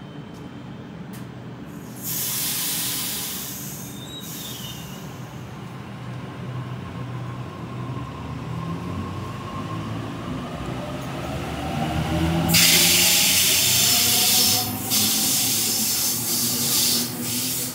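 Sydney Trains Waratah (A-set) electric train pulling out: a brief hiss of air about two seconds in, then the traction motors whining, rising in pitch as it picks up speed. From about twelve seconds in a louder rush of noise from the passing carriages takes over.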